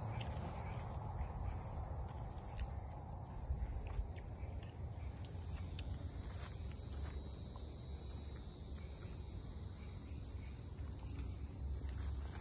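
Insects calling steadily in a high, even hiss that grows stronger through the middle, over a low rumble, with a few faint clicks and rustles.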